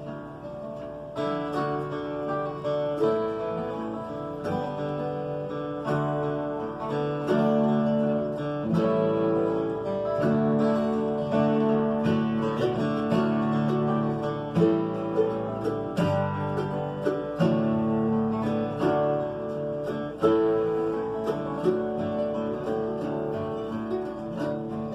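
Bluegrass band playing an instrumental introduction led by acoustic guitar. The playing grows fuller about a second in.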